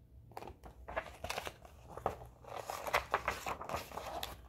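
Pages of a picture book being turned and handled: irregular paper rustling and crinkling, starting about half a second in.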